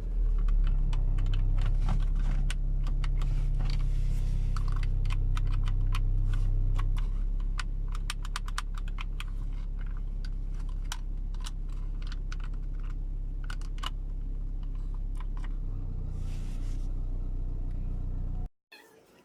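Rapid, repeated plastic clicking from the buttons of a Toyota Corolla's power window master switch being pressed, over a steady low hum of the idling car. Everything cuts off suddenly near the end.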